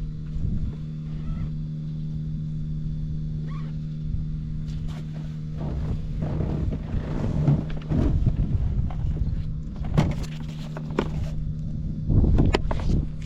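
Honda Cabina 50 scooter's small two-stroke single-cylinder engine running at a steady idle. From about halfway on there are scattered clicks and knocks on top, with a louder stretch near the end.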